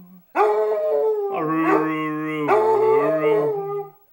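Basset Hound howling in long held notes that step from pitch to pitch, with a man's lower voice singing along.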